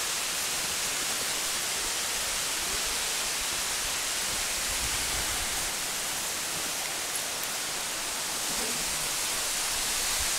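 Steady rushing hiss with no distinct events, even in level throughout.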